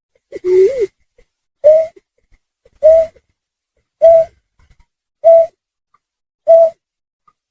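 Bird lure call played back as a loop, given as the call of a snipe (trinil sawah): one low two-part note that rises at its end, then short, low, single-pitched notes repeating evenly about once every 1.2 seconds.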